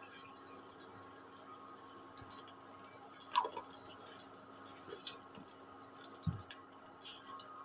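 A spoonful of ghee melting in hot oil in a pan, giving a soft, steady sizzle with scattered small crackles. A low thump comes about six seconds in.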